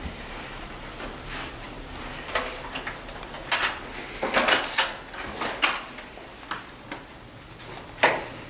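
Hotel room door being unlocked and opened: a string of sharp clicks and knocks from the lock, handle and door, the loudest about eight seconds in.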